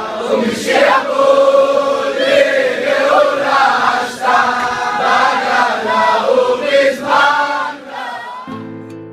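A congregation of men singing a prayer melody together. Near the end the singing fades and instrumental music comes in.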